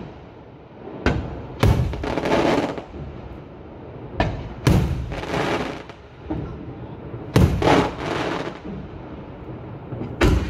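Maltese aerial firework shells (murtali) bursting overhead: about five sharp bangs spaced a second to three seconds apart, each followed by about a second of rushing noise.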